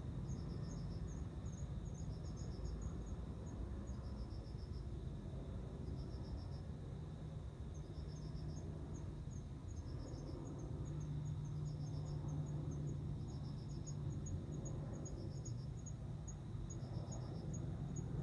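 Male cricket calling: trills of rapid pulses about a second long, repeating roughly every two seconds, the song that draws a female to mate. A higher, quicker series of short chirps runs alongside.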